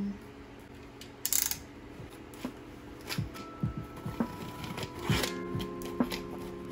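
A cardboard box being handled and its packing tape sliced open with a utility knife: scattered knocks and scrapes, with a short scrape about a second in and a longer one around five seconds. Soft background music with held notes comes in about halfway.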